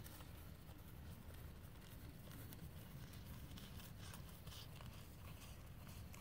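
Faint, soft hoof footfalls of a mule walking on dirt, over a low steady rumble.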